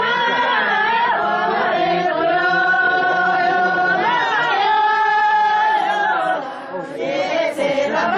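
A group of women singing a traditional song together in unison, with long held notes, pausing briefly between phrases a little after six seconds.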